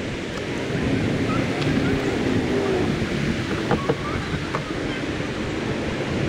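Wind buffeting the microphone over water lapping at a paddled kayak's hull, with a few light knocks.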